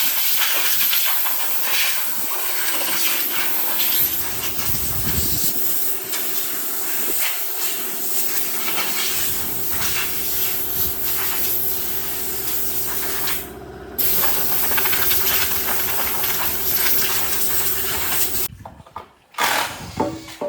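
A machine running with a loud, steady hiss and a steady hum under it. It cuts out briefly about two-thirds of the way through, then runs again until it stops near the end.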